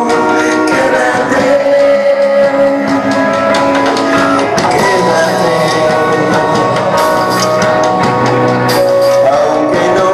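Live rock band playing a song: a male singer over electric guitar, bass and drum kit, with cymbal strikes throughout.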